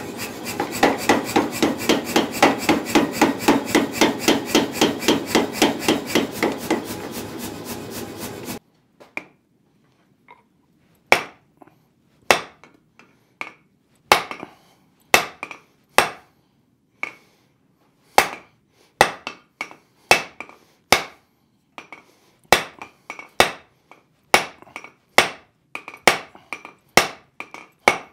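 Hydraulic forging press running with a loud, fast, even pulsing that cuts off abruptly about eight seconds in. Then a hand hammer strikes the hot end of a steel bar standing on an anvil, upsetting it: single ringing blows, a second or more apart at first, coming faster toward the end.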